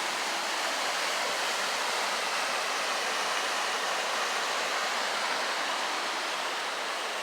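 Steady rush of creek water.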